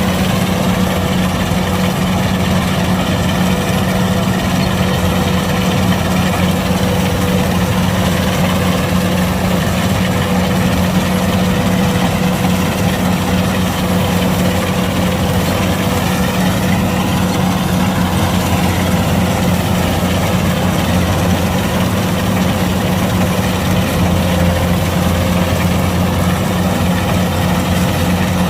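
Kubota DC-105X combine harvester's diesel engine running at a steady, loud drone.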